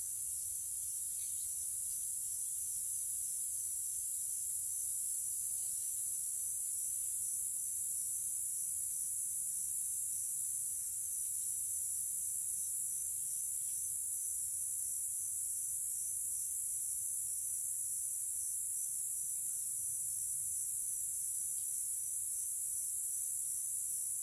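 Steady high-pitched hiss with no other clear sound.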